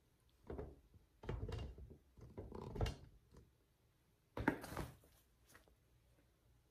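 A nylon tote bag being lifted and shifted by hand: four short bursts of fabric rustling and soft bumps, the loudest a sharper knock about four and a half seconds in.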